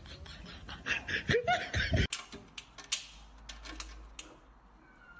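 A person laughing over a scatter of clicks. Then, from about two seconds in, light sharp clicks and rattles as a cat paws and mouths at the metal lock on a wire cage door.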